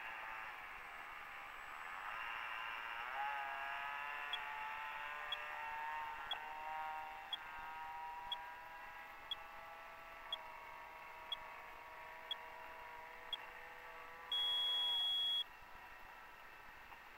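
Electric motor and propeller of a HobbyKing 1.2 m P-51 Mustang foam model in flight, a whine whose pitch dips about three seconds in, steps lower later on and fades near the end. Over it an electronic beeper sounds once a second, ten times in all, then gives one long beep, the loudest sound, like a countdown timer running out.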